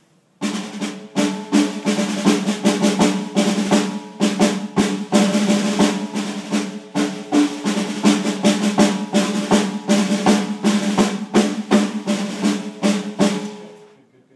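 Snare drum solo played with sticks: a dense run of rudimental strokes and rolls with regular accented hits, starting abruptly and ending shortly before the end.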